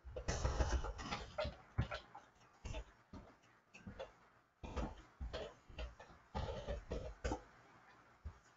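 Computer keyboard typing: irregular runs of key clicks in bursts, with a last keystroke near the end.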